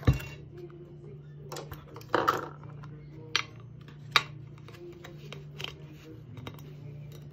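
Kinetic sand being squeezed and pressed by hand into a plastic star mold, with scattered clicks and taps of the mold and tub against a glass baking dish. A thump at the very start, and a brief rustle about two seconds in.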